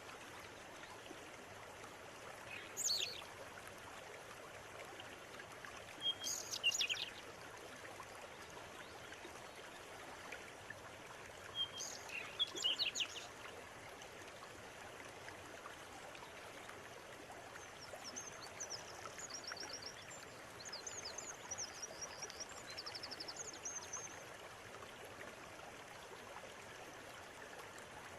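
Steady rush of a flowing river with birds calling over it. Short high chirps come three times in the first half, then a longer run of rapid high twittering in the second half.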